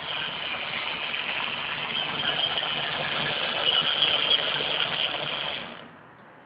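DC-ZG16 pipe tapering (cone-forming) machine running: a steady mechanical whirr and rattle from its 1.1 kW drive and die head. The sound falls away sharply near the end.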